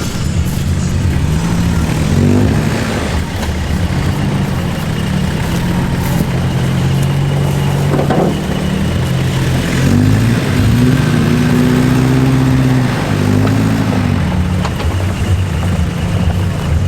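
Four-wheel-drive vehicle engine revving up and down several times as it works through an off-road track.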